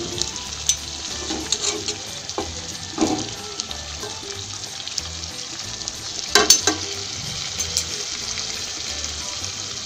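Spice-coated whole cauliflower sizzling steadily in hot oil in a karahi, the water in the pan cooked off so it is frying. A spatula scrapes and knocks against the pan a few times, loudest about six and a half seconds in.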